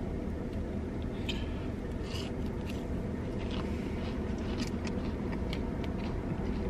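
Steady low hum inside a car cabin, with faint scattered clicks and wet mouth sounds of someone chewing a chicken tender.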